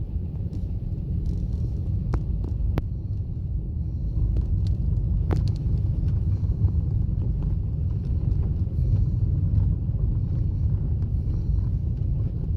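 Strong wind buffeting the microphone: a loud, fluctuating low rumble with a few faint ticks.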